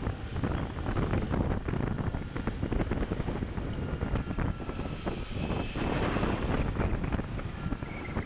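Wind buffeting the microphone of an action camera on a moving scooter, in irregular gusts over the scooter's running engine and street traffic.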